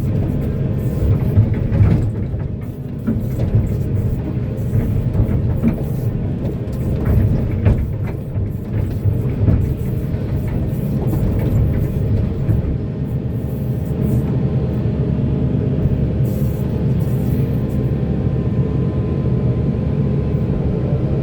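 Heavy diesel mining machinery running steadily, a deep engine drone with scattered short knocks and clacks over it.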